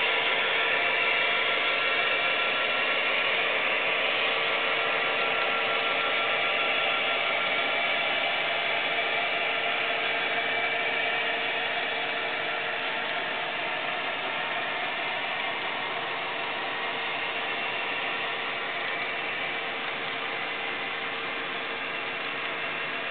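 Model railroad freight cars rolling along the track, a steady clattering whir of small metal wheels on rail that slowly fades as the train moves on.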